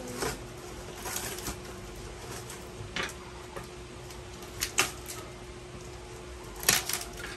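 Wrapping paper being torn and crumpled off a gift box in short rustling bursts, spread out with gaps between them, the loudest pair near the end. A faint steady hum runs underneath.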